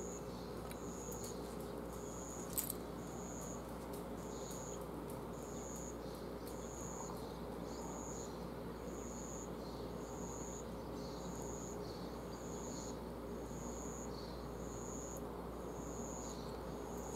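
A short, high chirp repeating at an even, steady pace a little under twice a second over a steady background hiss, with one sharp click about two and a half seconds in.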